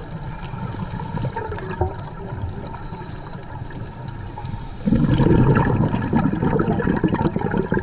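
Underwater sound on a scuba dive: a low, steady rumble, then about five seconds in a sudden, louder gurgling rush of bubbles, a diver's exhale through the scuba regulator.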